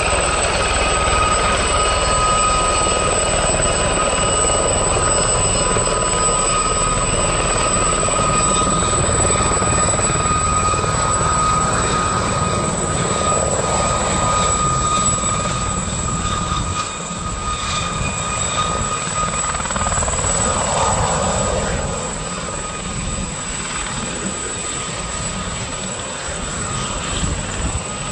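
Aérospatiale Gazelle helicopter hovering close by: the turboshaft engine and fenestron tail rotor give a steady high whine over the rush of the main rotor. The sound gets somewhat quieter in the second half as the helicopter moves farther off.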